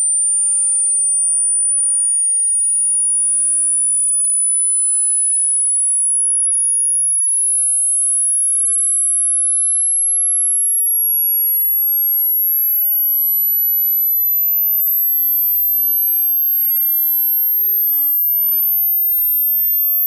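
A pure sine-wave test tone gliding slowly and steadily upward in pitch, from about 9,150 Hz to about 13,400 Hz: a high-frequency hearing-test sweep.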